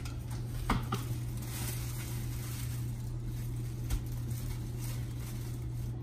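Light clicks and knocks of dishes and utensils being handled on a kitchen counter, a couple about a second in and one near four seconds, over a steady low hum.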